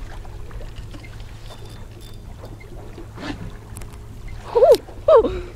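Steady low hum of a small fishing boat on the water, with wind on the microphone. Near the end come two short, loud vocal outbursts about half a second apart.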